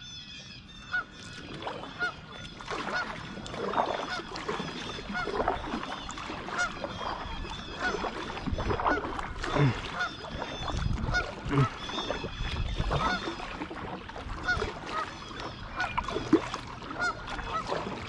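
Canada geese honking, many short calls overlapping and repeating throughout.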